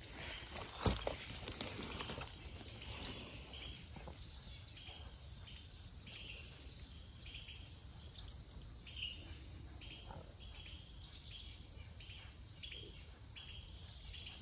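Woodland ambience: small birds chirping again and again in short, high calls, with one sharp knock about a second in.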